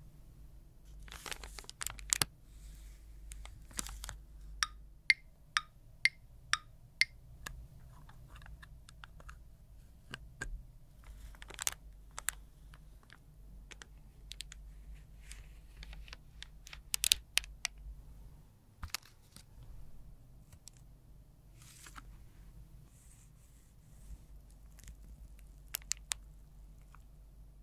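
Close-miked handling of small plastic cosmetic tools and packaging during a liquid lipstick repair: sharp clicks and taps, including a quick run of about six clicks two a second a few seconds in, with soft crinkling of a plastic bag and scraping of the lipstick between.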